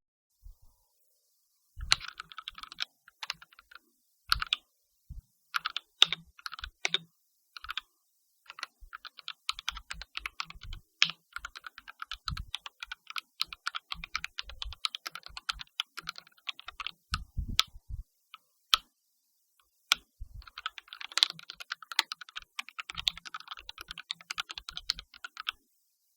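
Typing on a Royal Kludge mechanical keyboard: a few separate key presses, then a long run of fast typing, a short pause with a few heavier presses, and another fast run that stops shortly before the end.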